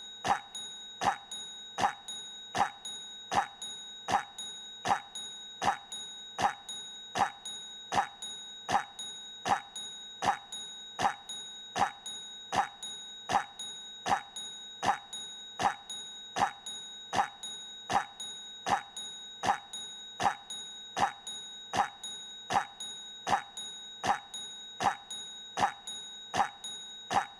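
A short cough sound effect looped over and over, identical each time, a little more than one cough a second, with a faint steady high tone underneath.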